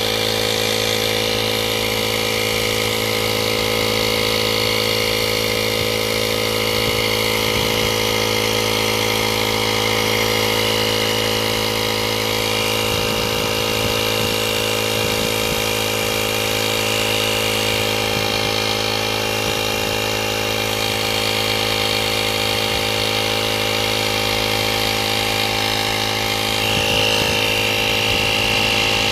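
12-volt portable tyre inflator's compressor running steadily, pumping up a car tyre with the pressure at about 2 bar.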